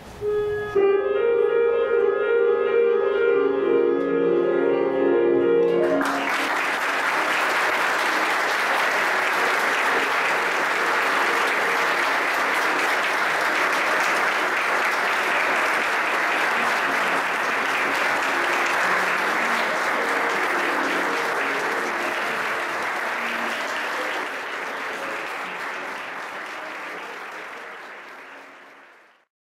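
Music plays alone for the first few seconds, then an audience breaks into steady applause about six seconds in, with the music still faintly under it. The applause and music fade out near the end.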